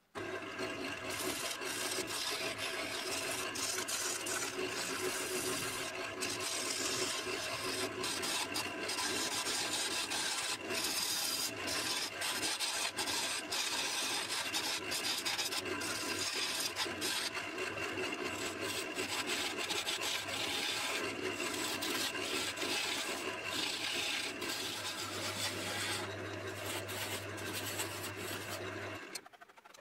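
A wood lathe spinning a wet elm blank while a gouge cuts it, giving a continuous rasping hiss of the tool shaving the wood over the steady hum of the lathe motor. It starts abruptly and dies away just before the end.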